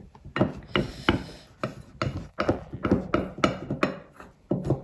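Metal spoon stirring a thick cornflour-and-water mix in a bowl, with irregular scrapes and clinks as the spoon hits the bowl. The paste is starting to stiffen against the spoon.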